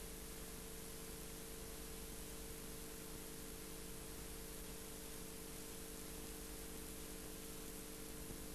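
Steady hiss with a faint hum and a few steady tones beneath it. This is the noise of the recording itself, with no other sound.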